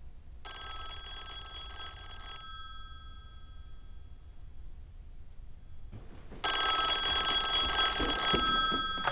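Telephone bell ringing twice, each ring about two seconds long and fading away after it stops. The second ring, some six seconds after the first, is louder.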